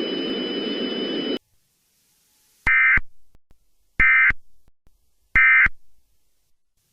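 A steady hiss of static with two thin high tones cuts off about a second and a half in. Then come three short, identical screeching data bursts about 1.3 s apart, each trailing off in a brief echo. These are the EAS end-of-message (EOM) tones that close an emergency alert broadcast.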